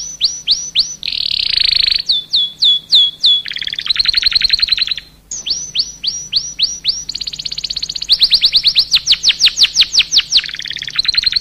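Domestic canary in full song: long, unbroken runs of fast trills, each phrase a quick string of sweeping whistled notes repeated many times before switching to a new phrase every second or two, with one brief break about five seconds in.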